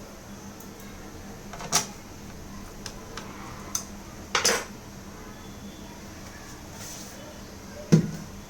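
Scattered sharp clicks and light knocks of hard parts being handled during laptop repair work: a short rattle about halfway through and a louder knock near the end.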